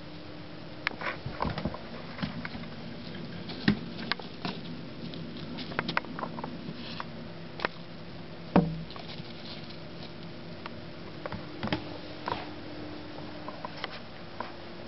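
Baby rabbit moving about its cage on wood-chip bedding: scattered light taps, scratches and rustles, with one sharper knock a little past the middle, over a faint steady hum.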